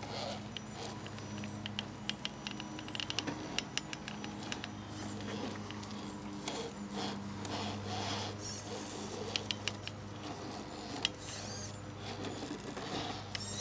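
RC rock crawler truck crawling slowly over rocks and gravel: irregular clicks, ticks and short scrapes of tyres and chassis on stone, over a steady low hum.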